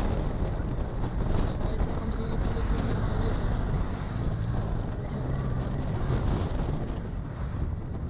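Triumph Tiger 660's inline three-cylinder engine running as the motorcycle is ridden along the road, with steady wind noise on the microphone.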